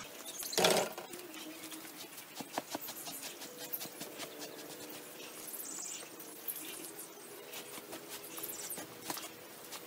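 A single brisk swish of a stiff brush against a shaggy rug about half a second in. After it comes faint background with light scattered ticks and clicks and faint bird sounds.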